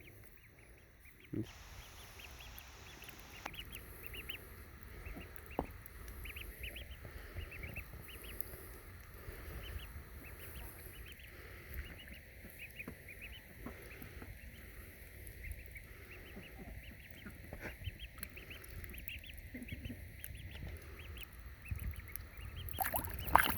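Ducklings peeping: many short, high chirps repeating over and over, with louder calls near the end.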